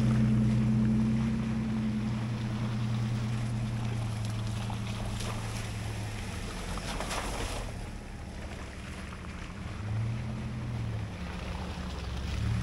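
A 4x4's engine pulling along a muddy trail: a steady low drone that eases off over the first several seconds, then rises in pitch briefly twice near the end as the throttle is pressed. There is a short rush of noise about seven seconds in.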